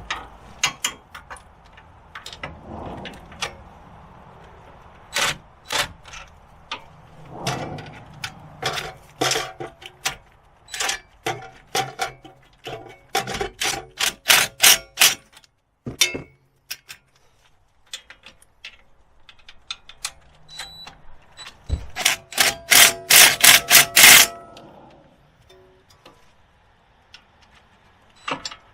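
Metal hand-tool work on a car's front wheel hub assembly: scattered metallic clinks and knocks, with two runs of rapid sharp strikes, about four a second, one midway and one near the end.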